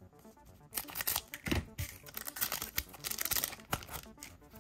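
A trading-card booster pack being torn open, its wrapper crinkling in several short bursts with a few sharp clicks.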